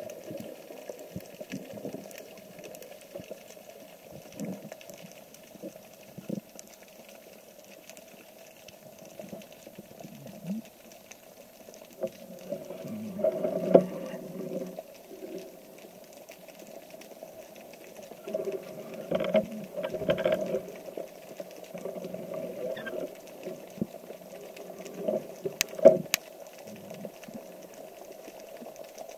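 Muffled underwater ambience picked up by a camera below the surface: a steady watery hiss with scattered soft knocks and clicks, and a few louder knocks about halfway through, around two-thirds in and near the end.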